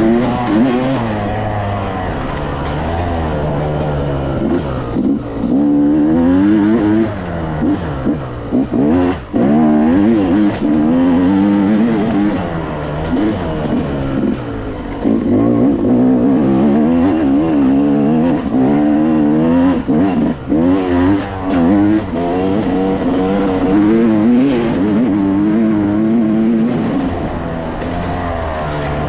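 Yamaha YZ250X two-stroke dirt-bike engine being ridden hard, its pitch climbing and falling constantly with the throttle, with a few brief drops as the throttle is chopped.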